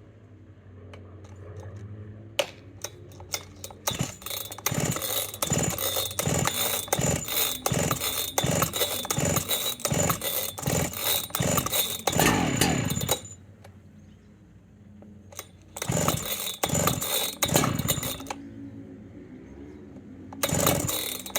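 Husqvarna 3120 two-stroke chainsaw being started after sitting since last year: it fires in a long run of rapid sputtering strokes, dies down, sputters again briefly, then catches and revs near the end.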